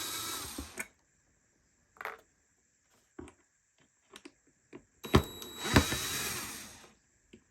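A small electric motor whines in two runs of about two seconds each, the first stopping about a second in and the second starting near the five-second mark, with a few short clicks and knocks in between.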